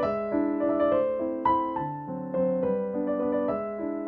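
Background piano music: a melody of notes changing about every half second over held lower notes.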